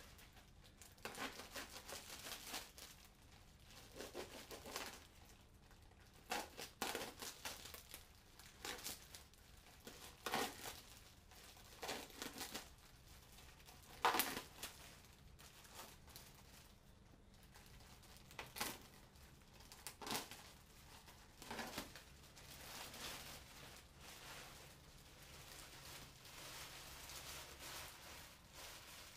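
Clear plastic sheeting crinkling and tearing as it is pulled off an engine block and bunched up by hand, in irregular bursts, with the loudest crackle about halfway through.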